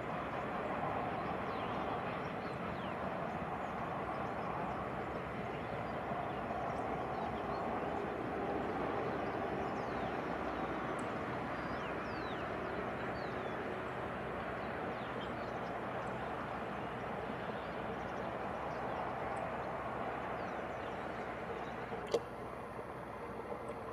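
Distant freight train of loaded car-carrier wagons, hauled by a class 253 Bombardier Traxx electric locomotive, rolling past with a steady noise of wheels on rails. Faint bird chirps sound over it, and a single sharp click comes near the end.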